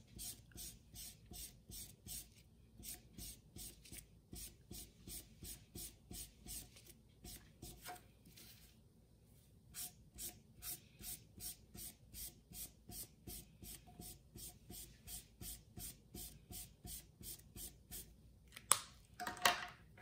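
Felt-tip marker scribbling back and forth on a paper towel: a faint, quick, even scratching of about two to three strokes a second, with a short pause partway through and a louder knock near the end.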